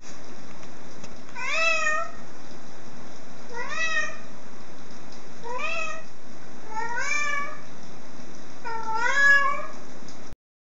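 A black-and-white cat meowing five times, about two seconds apart, each meow rising in pitch and then holding level, over a steady hiss.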